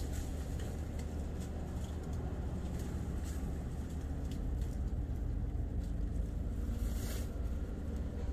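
Steady low outdoor rumble, with faint scattered ticks and rustles from lychee branches being handled as the fruit is picked by hand.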